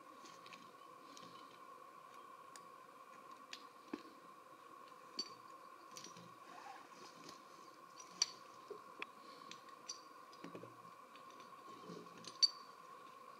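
Scattered sharp metallic clicks and clinks of a steel logging choker cable and its hook being handled and set around a felled log, over a faint steady high hum. The loudest click comes near the end.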